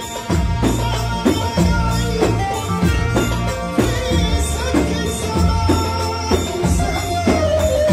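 Loud live Egyptian shaabi band music: electronic keyboard melody over a heavy bass and a steady, driving beat of hand drums and frame drums, with a held note sliding down near the end.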